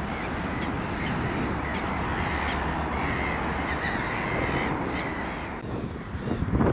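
A crow cawing again and again over a steady rumble of road traffic. Near the end the calls stop and the background changes.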